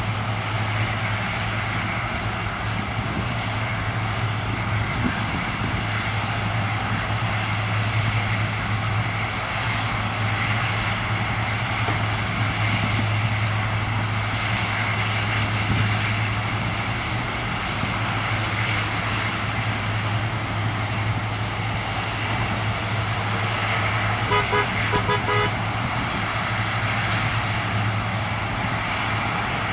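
Three-engined jet airliner's engines running at low power before take-off, a steady roar with a low hum. Late on, a horn sounds a quick string of short beeps over it.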